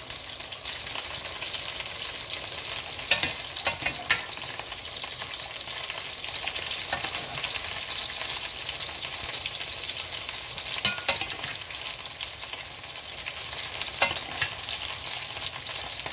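Noodles and vegetables sizzling in a hot frying pan as sauce is stirred through with a ladle: a steady hiss broken by a few sharp clinks of the ladle against the pan.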